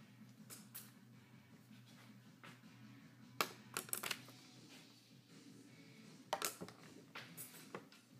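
A wooden paintbrush flipped onto a tabletop, landing with quick light clicks and clatters against a small bottle and the table, in about three bursts. A faint steady low hum runs underneath.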